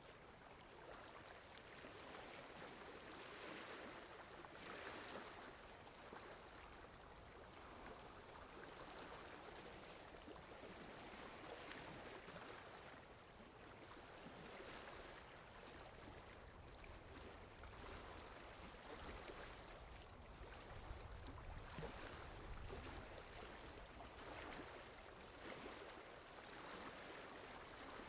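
Faint steady rain, an even hiss that swells and eases every few seconds. A low rumble joins it about three quarters of the way through.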